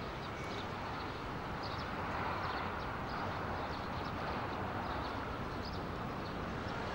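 Steady outdoor city ambience: a hum of distant traffic, with faint short high sounds scattered through it.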